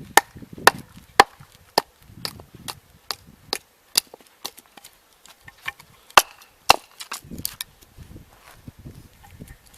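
A baton striking the spine of a Farberware kitchen knife again and again, driving the blade down into a piece of wood to split it. Sharp knocks come about twice a second, growing fewer and lighter near the end.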